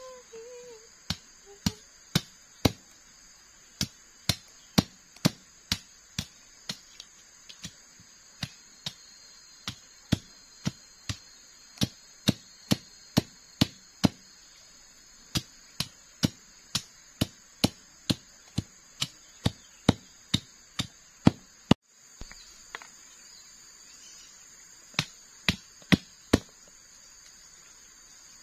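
Machete (golok) chopping at the end of a wooden stake: sharp, evenly spaced blows, about two a second, in runs with brief pauses. A steady high buzz of insects carries underneath.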